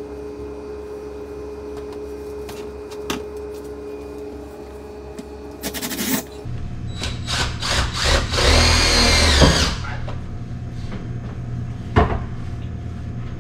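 Cordless drill driving self-tapping screws through a diamond-plate metal kick plate into a walk-in cooler door. There are a few short bursts about six seconds in, then a longer, louder run of the drill about two seconds later, and a sharp click near the end.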